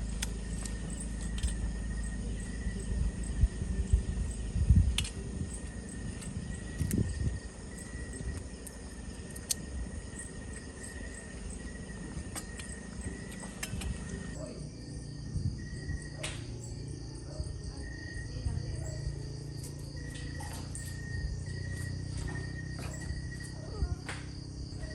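Insects, crickets among them, chirping steadily and without a break, with scattered short clicks and knocks. There is some low rumble in the first few seconds.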